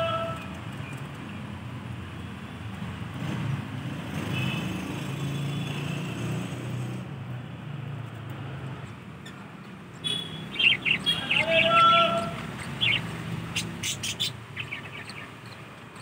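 Budgerigars chirping and chattering, with a quick run of sharp chirps about two-thirds of the way in, over a steady low rumble.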